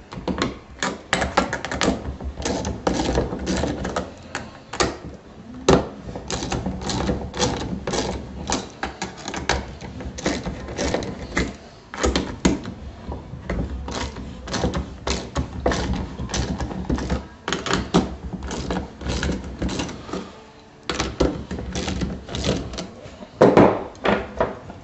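Ratchet wrench clicking in quick runs with short pauses as the lock nuts on a dry-cell HHO generator's end plate are loosened.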